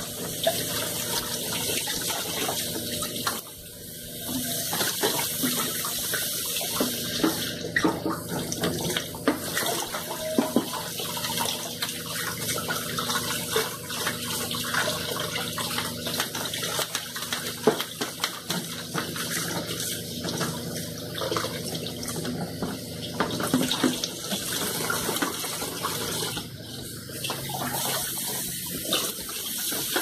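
Tap water running into a sink, with short knocks and clatter scattered through it as things are handled and washed under the stream.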